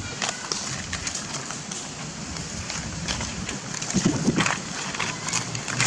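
Steady outdoor background hiss with scattered faint clicks and rustles, and a short louder low murmur about four seconds in.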